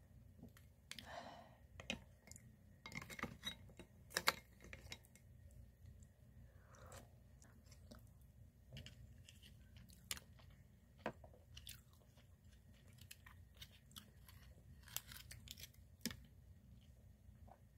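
A person quietly eating steamed mussels, with chewing and scattered light clicks of mussel shells, chopsticks and a wooden spoon against a ceramic bowl; the sharpest click comes about four seconds in.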